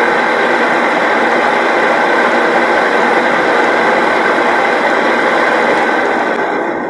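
Homemade wood lathe running with a damaged spindle bearing: a loud, steady mechanical rattle with a high whine running through it. It begins to die away near the end.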